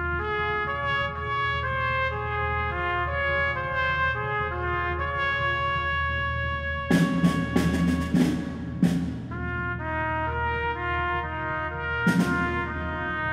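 Closing music: a slow melody of held brass notes, with a cluster of percussion hits about seven to nine seconds in and one more near the end.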